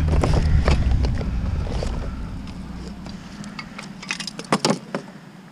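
Low engine rumble of a garbage truck fading away over the first few seconds. Near the end come rustling and a few sharp knocks and rattles of rubbish being handled in a plastic wheeled trash bin.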